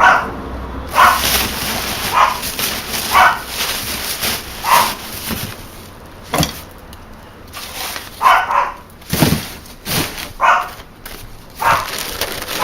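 A dog barking repeatedly, roughly one bark a second, with a pause of a second or two in the middle.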